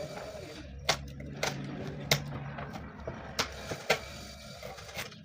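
Upholstery staple gun firing, five sharp shots at irregular intervals, over a low background hum.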